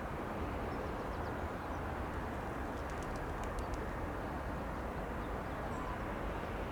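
Steady noise of a Bombardier Global Express business jet's engines, even in level, with faint bird chirps about three seconds in.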